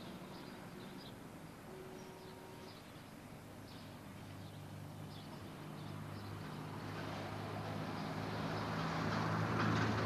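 Engine of a narrow-gauge rail vehicle running and growing steadily louder from about four seconds in, with wheel clatter over the rail joints setting in near the end. Small bird chirps come in the first few seconds.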